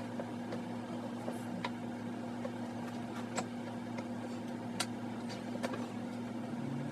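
Steady low mechanical hum with scattered light clicks and taps of small parts being handled.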